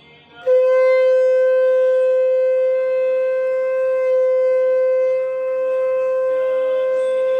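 A conch shell (shankh) blown in one long, steady blast that starts about half a second in and is held without a break. It is sounded to hail Krishna's birth at midnight.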